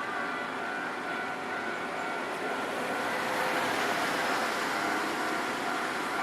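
Hankai Tramway tram approaching and running over a level crossing. Its running noise builds from about three seconds in.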